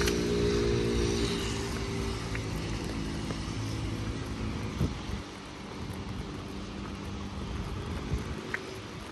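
A motor vehicle's engine running close by with a steady low hum that fades away about five seconds in, leaving the hiss of rain and street noise.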